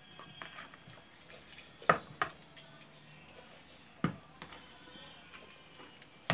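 A knife and hands working a whole raw chicken in a pot: a few sharp knocks against the pot, the loudest about two seconds in, between soft wet handling sounds.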